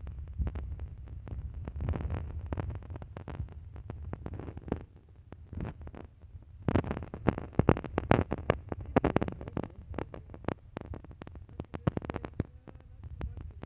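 Wind rumbling on a phone's microphone, mixed with handling noise: many small clicks and knocks, thickest about seven to nine seconds in.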